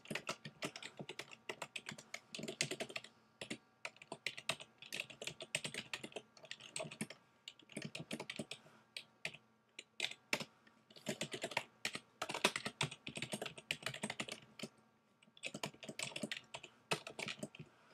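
Typing on a computer keyboard: runs of quick key clicks broken by short pauses.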